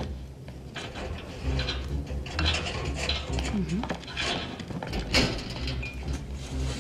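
Porcelain teacups, saucers and cutlery clinking and clattering at a laid tea table, a scattered run of short light clinks.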